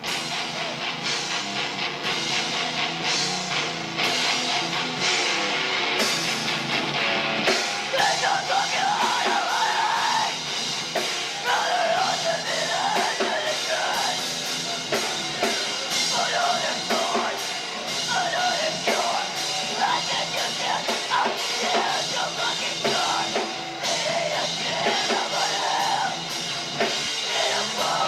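Rock band playing with a drum kit and guitar; a singer comes in about eight seconds in.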